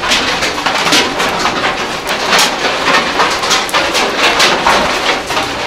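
Hail falling: hailstones striking the ground and leaves in a dense, irregular clatter of sharp ticks.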